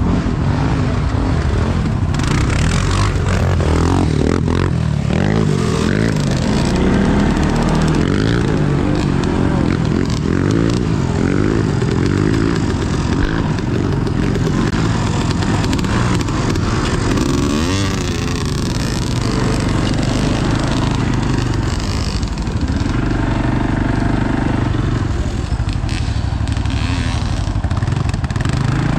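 Off-road vehicle engine running loud and continuously on a dirt trail, revving up and down as the throttle changes.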